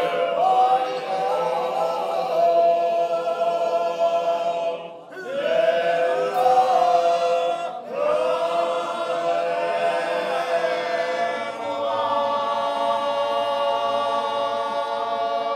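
A group of men singing a cappella in harmony, holding long sustained chords; the phrases break off briefly about five and eight seconds in.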